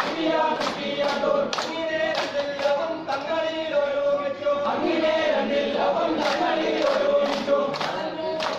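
A group of men singing a Poorakkali song together in unison, with sharp hand claps keeping time at intervals through the singing.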